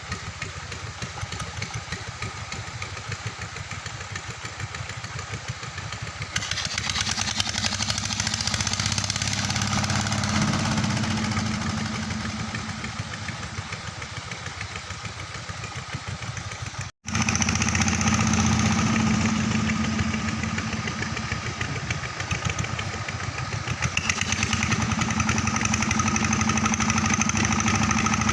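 Engine of a river sand-suction pump running steadily. It grows louder and brighter about six seconds in, breaks off for a split second about seventeen seconds in, then runs on.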